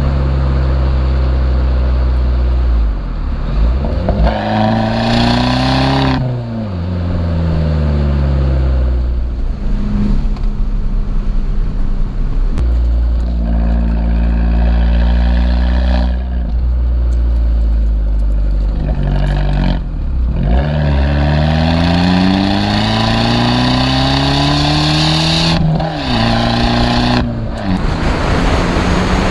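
Abarth 595's 1.4 turbocharged four-cylinder engine running through a Monza exhaust with its valve wired open so it flows freely. It pulls up through the gears twice, its pitch rising to each upshift and dropping sharply at the change, with a steady cruise in between.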